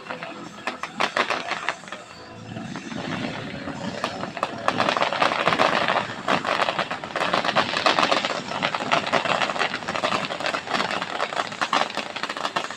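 Aerial fireworks crackling: a dense, rapid patter of many small pops. It is sparser for the first couple of seconds, then swells to a thick, loud crackle from about four seconds in.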